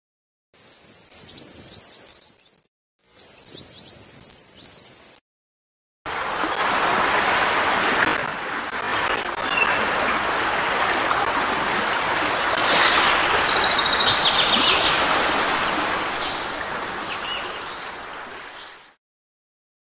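Recorded nature-sound loops from a relaxation app. First comes a night track of steady high cricket chirring, broken off twice in the first five seconds. From about six seconds in, a steady wash of sea waves plays with bird chirps over it, fading out near the end.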